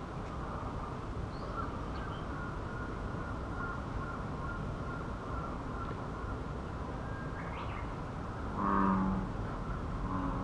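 American bullfrog giving one deep, lowing, cow-like call about eight and a half seconds in, over a steady outdoor background hiss. A couple of faint high bird chirps come in the first two seconds.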